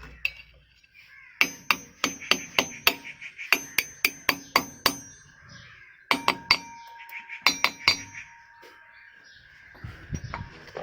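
Hammer tapping on metal in four quick runs of blows, each blow with a short metallic ring: a ball bearing being driven into the ceiling fan's motor.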